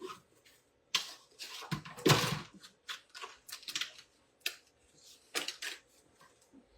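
Cardstock and paper being handled on a craft table: irregular rustles, taps and light clicks, the loudest a short rustle about two seconds in.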